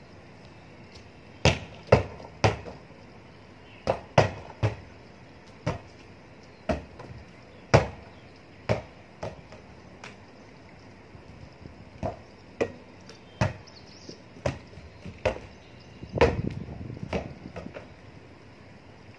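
A volleyball being hit by hand again and again in a solo rally: about twenty sharp slaps, often about a second apart and sometimes two or three in quick succession, with a longer scuffling noise about sixteen seconds in.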